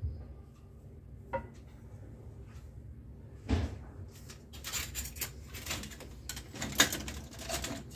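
Kitchen handling sounds: a knock at the start, a click and then a thud, followed over the last few seconds by a quick run of clicks and rattles as a spatula and a glass bottle are moved on the counter.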